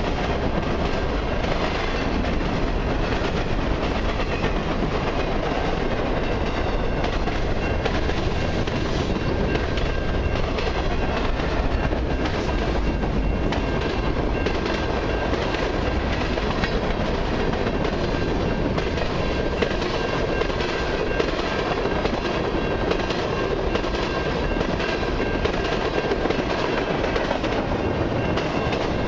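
Freight train cars rolling past close by: boxcars and tank cars running over the rails with a steady rumble and a rapid, continuous clatter of wheel clicks.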